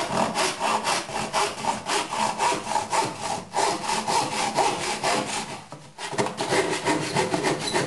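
Hand saw cutting through a small piece of wood in quick, even back-and-forth strokes, about four to five a second, pausing briefly about six seconds in.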